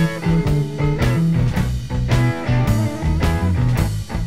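Late-1960s blues-rock recording with electric guitar, bass and drums, played back from reel-to-reel tape on an Akai GX-630D; a steady beat of about two drum hits a second under moving bass notes.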